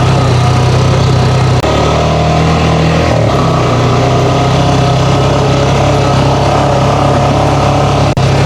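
Honda 500 side-by-side's engine running steadily while riding, its pitch shifting a couple of times in the first few seconds.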